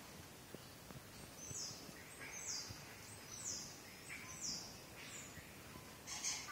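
A bird chirping, short high falling chirps repeated about once a second, fairly faint.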